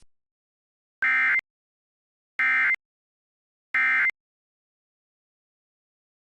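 Emergency Alert System end-of-message data tones: three identical short bursts of digital warbling, about a second and a half apart, signalling the end of the alert.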